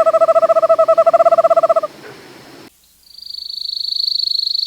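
Two recorded bird trills, each a rapid run of identical notes. First comes a low trill that stops a little before two seconds in; about a second later a much higher trill begins, swelling in loudness.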